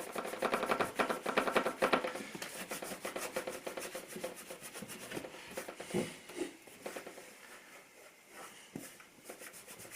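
Excess wood filler being wiped from around the filled screw holes on a door: a fast run of rubbing strokes, densest in the first couple of seconds, then fainter and sparser, with a couple of light knocks later.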